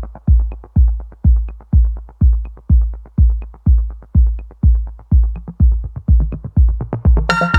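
Electronic dance music with a heavy kick drum on a steady beat, about two beats a second; a bright synth layer comes in near the end.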